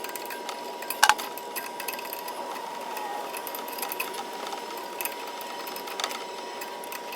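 Small clicks and knocks of hands working wire into an electrical box, with one sharper knock about a second in, over a steady high-pitched hum.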